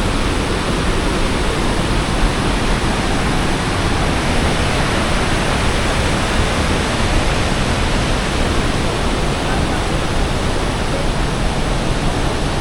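Iguazú Falls at the Devil's Throat: a continuous, very strong rush of falling water, steady and unbroken.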